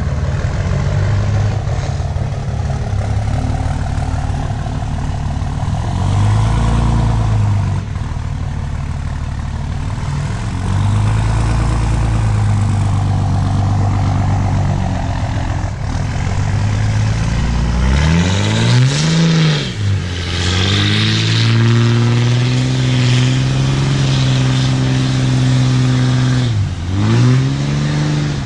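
Diesel pickup truck engine running under load off-road, its revs rising and falling. Twice in the last third the revs climb and then drop sharply before picking up again.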